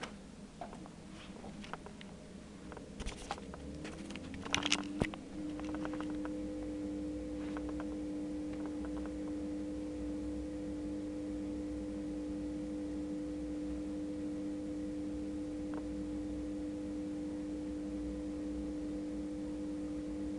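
Bosch Exxcel dishwasher starting its intensive 70 cycle. A few clicks and knocks come first. About five seconds in, its pump motor spins up and then hums steadily, cutting off suddenly near the end.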